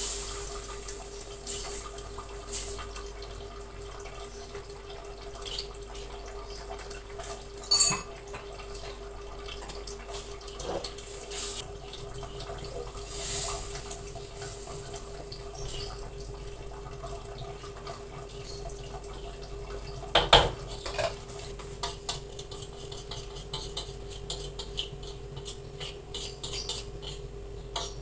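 A spatula and a metal spoon scraping and knocking against a metal wok while a thick sauce is stirred, with scattered clicks and two louder knocks, about eight seconds in and again about twenty seconds in, over a steady low hum.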